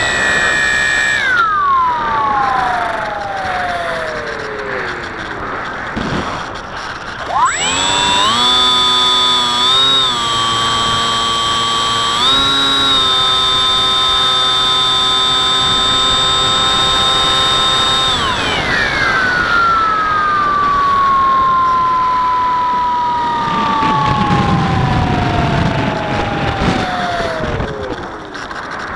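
Electric motor and propeller of a Bixler 3 model plane, heard from on board: the whine falls away as the throttle is eased off, jumps back up about seven seconds in, holds steady for about ten seconds, then slides slowly down again. Wind rumbles over the plane for a few seconds near the end.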